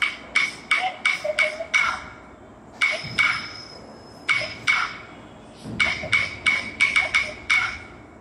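Rhythm-keeping percussion for a Bharatanatyam dance: sharp, ringing strikes in quick runs of about three to four a second, broken by short pauses.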